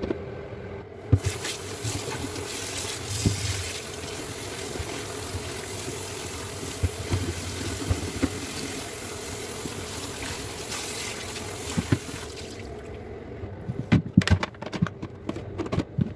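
Water running from a kitchen tap into a sink, with scattered clinks and knocks of dishes. The water stops about twelve seconds in, and a quick run of knocks and clatter follows near the end.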